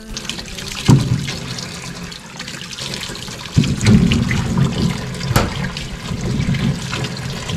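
A knock about a second in. Then, about three and a half seconds in, tap water starts running from an outdoor faucet into a bowl in a stainless-steel sink as vegetables are rinsed by hand.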